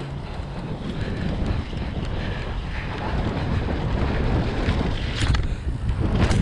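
Wind rushing over a helmet camera's microphone as a downhill mountain bike rides down the trail, growing steadily louder, with a couple of sharp knocks near the end.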